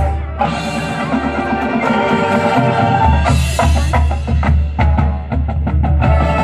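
High school marching band playing its field show: sustained wind chords over drums and front-ensemble mallet percussion. About halfway through, a strong low bass enters along with a quick run of sharp percussion strikes.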